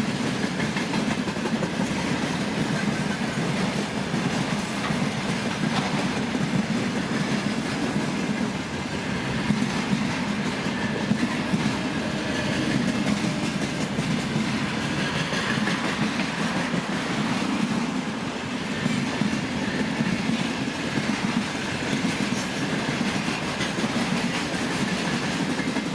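Freight train wagons rolling past at speed: a steady rumble of steel wheels on the rails, with clatter as they run over the rail joints.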